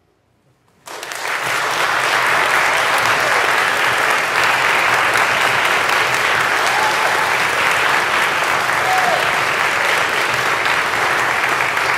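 Audience applause breaking out suddenly about a second in, right after the last note of the music dies away, then continuing as steady, full clapping.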